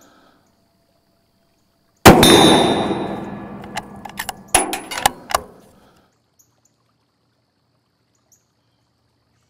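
A 300 Winchester Magnum rifle shot striking a ballistic barrier panel: one sudden loud crack about two seconds in, with a metallic ring that dies away over about three seconds. A few sharp knocks and clicks follow.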